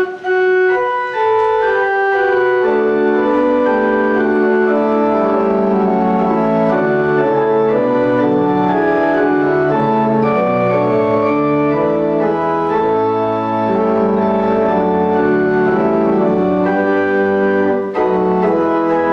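Church organ playing the postlude after the benediction: full, sustained chords that change every second or so, with a melody moving over them.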